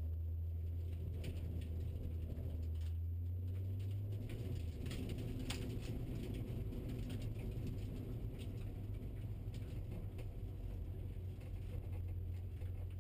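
BMW E36 M3's straight-six engine running steadily at low revs, heard inside the cabin as a low hum, with a few light clicks and knocks over it.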